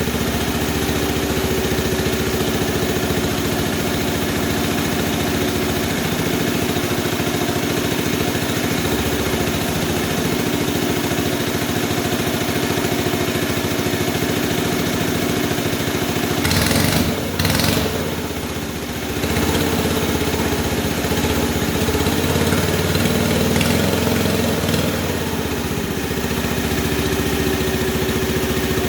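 Small engine of an engine-driven RC model Cat D11 bulldozer running steadily. A little past halfway its note breaks up briefly and drops, then runs fuller for a few seconds before settling back.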